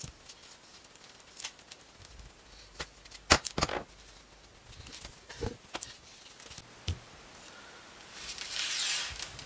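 Ceiling-fan wires and their quick connectors being handled and taped: a few scattered small clicks and taps, then a stretch of rustling near the end.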